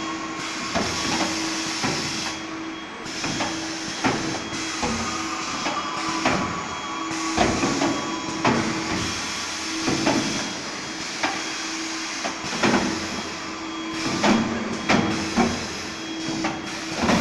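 Robotic welding line in a car-body shop running: a steady machine noise full of sharp clanks and clicks, with a low hum that switches on and off every second or two.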